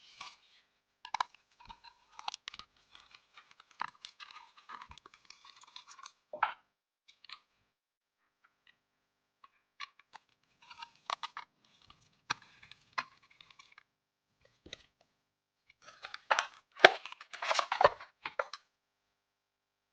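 Plastic wrapping crinkling and tearing as it is handled, in irregular bursts with small clicks and taps between, loudest near the end.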